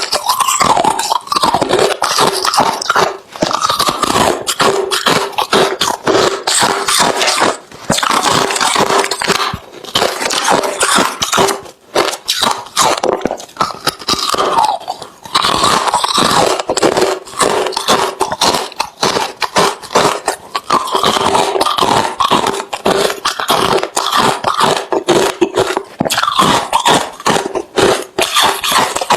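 Close-up crunching of hard refrozen crushed ice being bitten and chewed: dense, rapid cracks, with a few brief pauses between mouthfuls.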